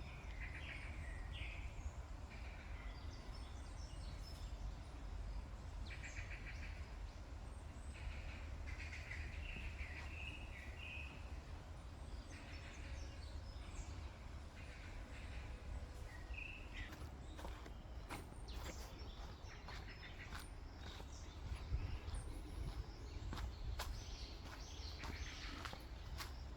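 Small woodland birds calling in short, repeated chirping phrases, unseen and of unknown species. From about two-thirds of the way through, footsteps sound on a forest trail, all over a steady low rumble.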